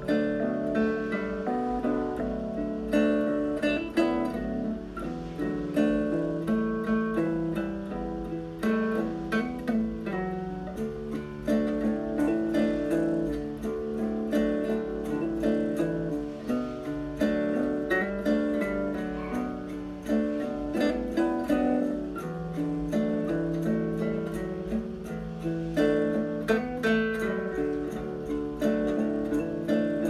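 Background music with quick plucked notes, led by an acoustic guitar.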